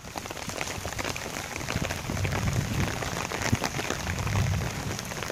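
Heavy rain falling on stone paving: a dense, even hiss with many sharp little drop hits close by.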